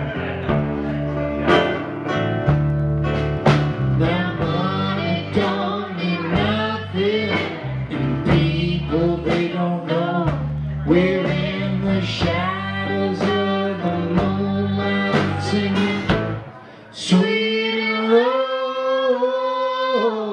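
Live blues band playing: a guitar solo of plucked and bent notes over bass guitar and drums. About 17 seconds in it breaks off briefly and a long held note with a wavering pitch takes over.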